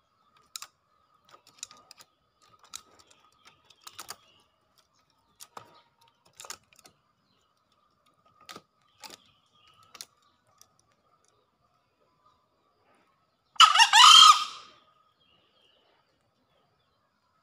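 A male green junglefowl crows once, a single harsh call of about a second, about three quarters of the way through. Before the crow, light sharp clicks come at irregular intervals.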